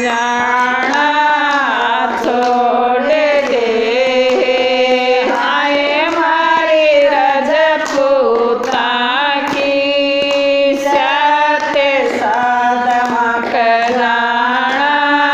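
A group of women singing a Haryanvi devotional bhajan together, keeping time with steady hand claps.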